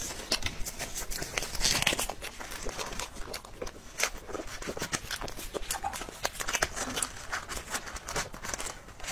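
Crinkling and clicking of a disposable plastic glove and a clear plastic dessert box being handled, with a metal spoon scooping soft cake.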